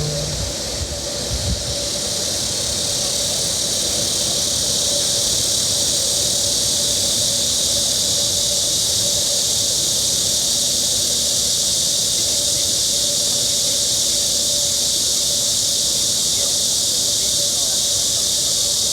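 Steady, high-pitched drone of a chorus of summer insects, with a faint steady hum underneath.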